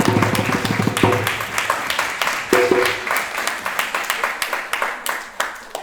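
Audience applauding and clapping. The last of a song's music sounds in about the first second, and the clapping dies away near the end.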